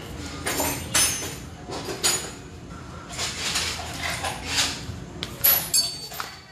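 Metal hand tools and parts clinking and clanking at irregular intervals, with several sharp, ringing clanks.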